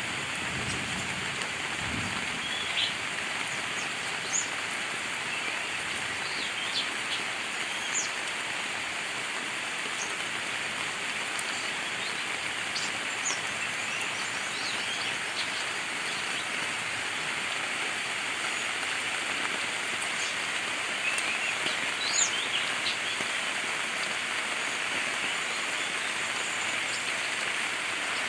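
Steady rain falling, with birds chirping now and then in short, high calls, a small cluster of them near the end.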